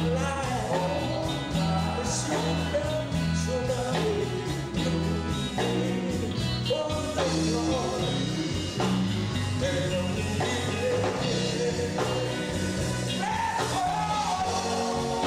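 Male gospel vocal group singing lead and harmony into microphones, backed by a live band with drums, guitar and a steady bass line.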